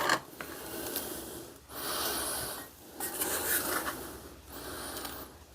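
Iron acetate being rubbed onto a wooden screwdriver handle, about four scratchy strokes of roughly a second each.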